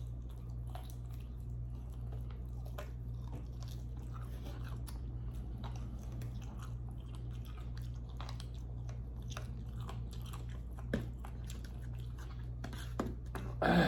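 Close-miked chewing and biting of food: a run of small, irregular mouth clicks and smacks over a steady low hum, with a sharper click about eleven seconds in and a louder sound at the very end.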